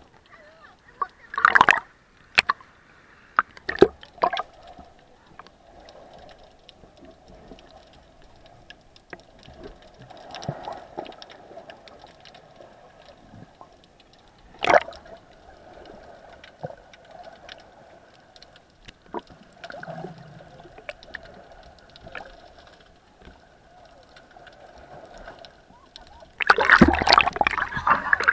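Water heard through an action camera held underwater: a muffled, steady wash with scattered sharp clicks and knocks. Near the end it turns to loud splashing and sloshing as the camera reaches the surface.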